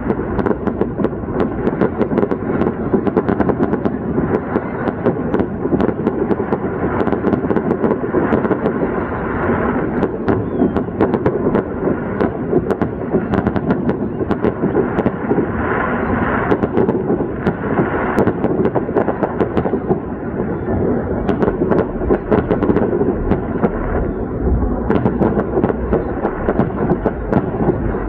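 Fireworks going off continuously: many rapid bangs and crackles running together into a steady rumble.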